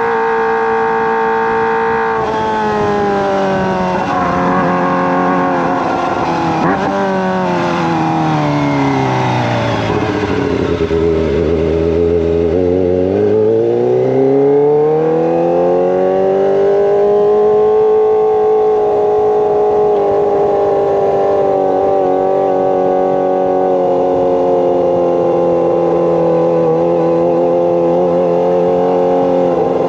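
Kawasaki ZX-25R's 250 cc inline-four running through a Racefit Slash exhaust while being ridden. The engine note holds steady, drops smoothly over several seconds as the revs fall, bottoms out briefly, then climbs again and settles into a steady high-revving drone.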